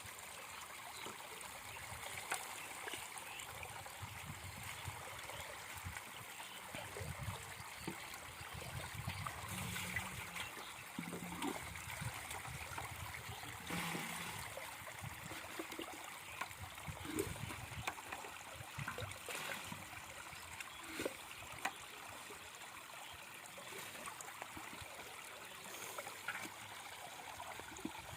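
Water trickling and gurgling steadily, with scattered small splashes and knocks.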